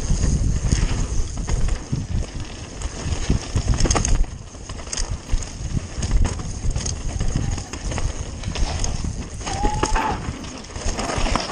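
Mountain bike riding fast down a rough dirt trail: a continuous low rumble with knobby tyres crunching and the bike rattling and knocking over roots and stones.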